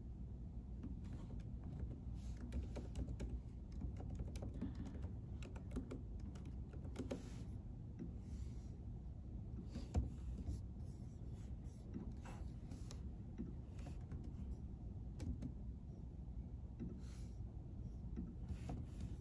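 Irregular clicks of typing on a computer keyboard over a steady low hum of room noise, with one sharper knock about halfway through.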